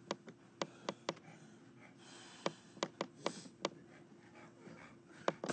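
Faint, irregular sharp clicks and taps, about a dozen, clustered in the first second and between two and four seconds in, over a faint steady hum.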